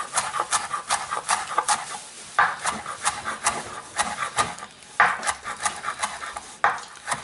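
Kitchen knife chopping fresh cilantro on a bamboo cutting board: quick, repeated chops at about four a second against the wood, with a few louder strokes along the way.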